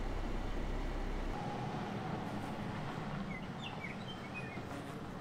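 A steady low rumble that cuts off about a second and a half in, then a Range Rover's engine and tyres on a dirt and gravel trail, slowly getting quieter as it drives away. A few short bird chirps about three and a half seconds in.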